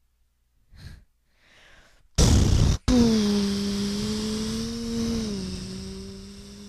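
Vehicle engine sound for the toy vehicles driving off: a loud burst about two seconds in, then a steady droning engine note that drops slightly in pitch and fades away.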